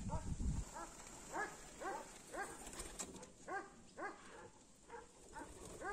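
An animal giving short yelping calls, each rising and falling in pitch, repeated about twice a second. There is a low rumble in the first half second.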